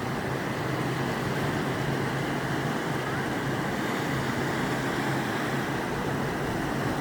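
Steady rushing of sea water, with a low steady hum underneath and no distinct wave breaks.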